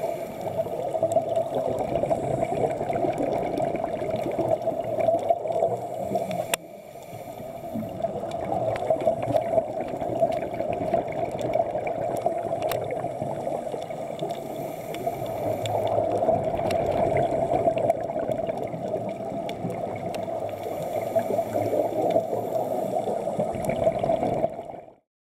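Underwater sound of scuba diving: a steady rushing and gurgling of regulator breathing and exhaled bubbles, with a brief high hiss every seven seconds or so.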